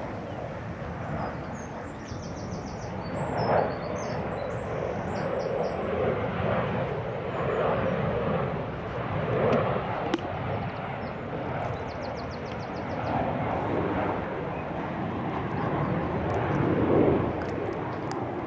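Outdoor background noise that swells and fades every few seconds, with faint bird chirps twice.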